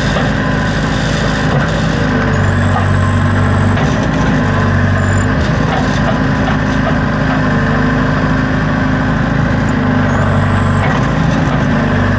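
Backhoe's diesel engine running under load while the hydraulics work the digging arm, its note swelling and easing every couple of seconds, with a dense rattle.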